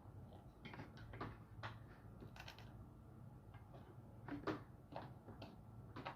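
Faint, scattered clicks and rustles of a flat iron hair straightener being handled and drawn through hair.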